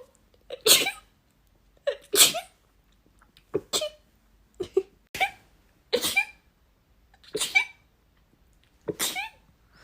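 Rapid human sneezes, about eight in a row, each a short sharp burst, coming roughly one every second or so.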